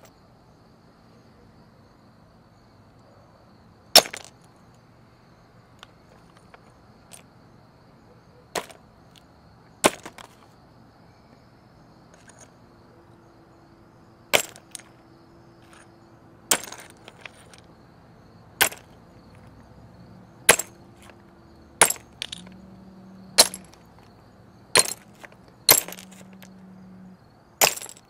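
A ceramic teacup being smashed: about a dozen sharp cracking blows, a few seconds apart at first and coming faster toward the end.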